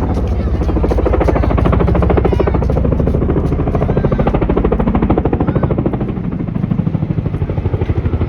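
Helicopter rotor blades chopping in a fast, even beat, with the engine's drone underneath. The beat pulses a little more unevenly in loudness in the last couple of seconds.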